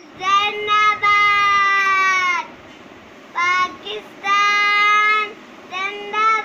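Young child singing three drawn-out phrases, each a short note followed by a long held note.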